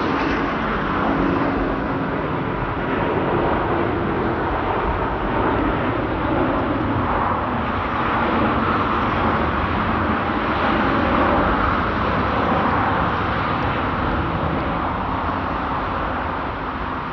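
Jet airliner engines at takeoff thrust, a loud, steady rumble that holds at about the same level throughout.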